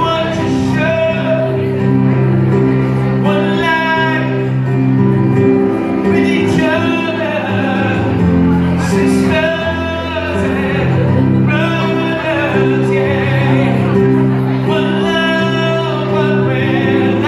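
Male vocalist singing live into a microphone over instrumental accompaniment of long, held chords, the voice rising and falling in phrases.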